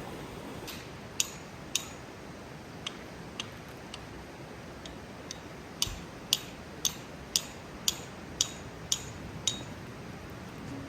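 A series of sharp, light clicks over a steady background hiss: a few scattered ones, then a regular run of about two a second for several seconds.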